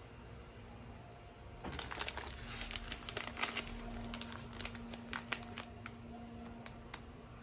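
The metallized plastic wrapper of a packet of Bauducco guava-filled cookies crinkling as hands work it open and pull out a cookie. A quick flurry of sharp crackles starts about two seconds in and thins to a few separate clicks near the end.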